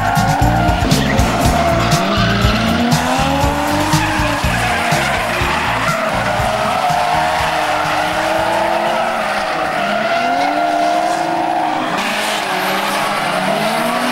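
Drift cars sliding through corners: engines revving up and down and tyres squealing, with a heavy low rumble in the first half that drops away about six seconds in.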